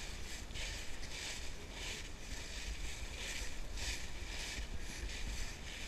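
Footsteps shuffling and crunching through dry fallen leaves at a walking pace, about one step every two-thirds of a second, over a low steady rumble.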